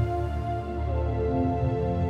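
Background music: a calm ambient track of held chords over a low bass, the chord changing about a second in.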